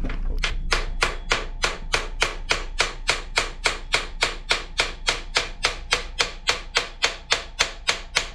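A soft-faced mallet tapping a new hinge pin into a Brompton folding bike's main frame hinge: a steady run of evenly spaced taps, about three to four a second.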